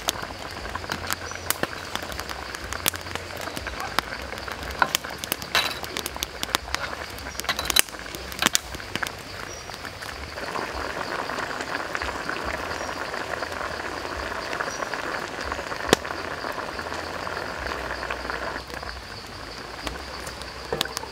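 Chicken legs sizzling and bubbling in a steel wok of dark sauce over a wood fire, the sizzle growing denser from about halfway. A metal ladle knocks and scrapes against the pan now and then, giving sharp clicks.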